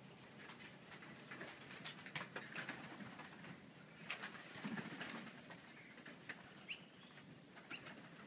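Pigeons cooing faintly among scattered light clicks, with a couple of short high bird chirps near the end.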